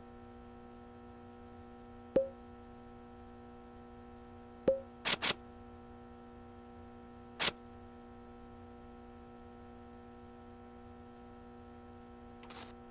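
Five short sharp clicks, two of them ending in a brief ping and two coming in quick succession, over a faint steady hum.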